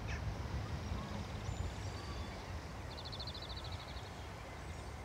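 Outdoor ambience at a canal lock: a steady low rumble, with a faint, rapid, high-pitched trill of about a second starting three seconds in.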